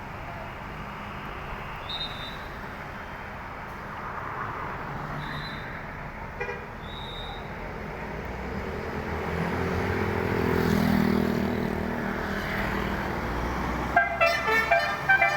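Street traffic noise that swells as a vehicle passes in the middle. Near the end a tour bus's telolet horn starts up: a loud, pulsing multi-tone horn melody at about four notes a second.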